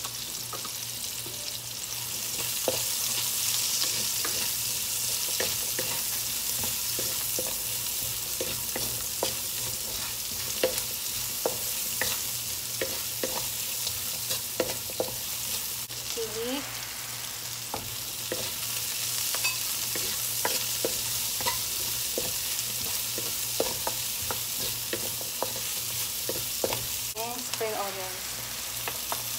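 Sliced onions sizzling in hot oil in a wok, with a steady hiss, while a wooden spatula stirs them, knocking and scraping against the pan again and again.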